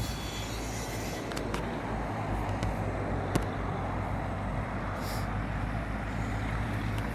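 A car running with a steady low engine drone and road noise, with one short click partway through.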